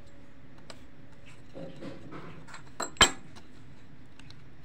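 Small clicks and scraping of a screwdriver turning out a screw from a Bluetooth speaker's circuit board, with a sharp metallic clink about three seconds in.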